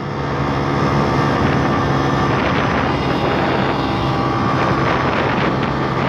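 YX160 single-cylinder four-stroke pit bike engine running steadily at cruising speed, about 40 mph, a little louder after the first second. Wind rushes over the microphone.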